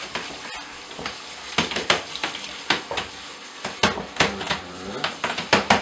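Handheld shower spraying water over a wet orangutan in a bathtub: a steady hiss of spray with many short splashes throughout.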